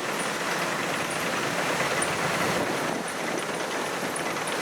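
Kubota DC-93G rice combine harvester running steadily as it cuts, an even mechanical rush of engine and threshing with no clear engine note.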